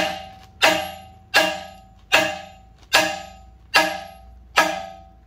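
Hammer blows on a steel bracket welded to a Sterling 10.5 axle tube, knocking the ground-through bracket off. There are about seven blows, evenly spaced a little under a second apart, and each one rings with a clear metallic tone that dies away before the next.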